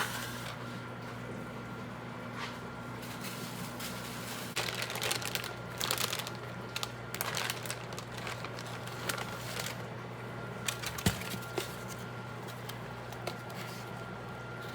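Food packaging being handled, rustling and crinkling in bursts, with a few light clicks and one sharper click near the end, over a steady low hum.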